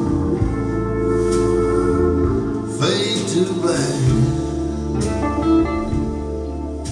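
A song played back through Polk Audio Reserve R200 bookshelf speakers: an instrumental passage with guitar, growing quieter near the end.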